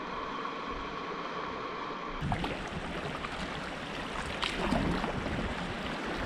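River water rushing around a canoe in fast current. About two seconds in the sound changes abruptly to water splashing and lapping at the bow as the canoe is paddled, with some wind.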